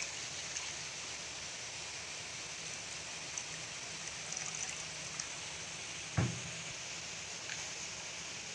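Steady watery hiss of a pot of coconut-milk curry simmering on a gas stove while coconut milk is poured in. A single dull knock comes about six seconds in.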